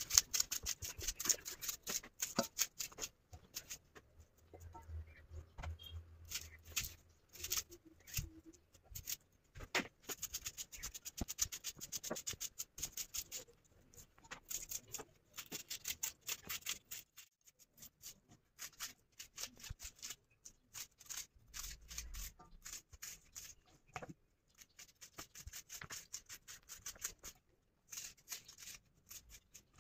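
Kitchen knife slicing thin rounds off a crisp plant stem held in the hand, a run of short irregular cutting snicks, with slices dropping softly into a steel bowl.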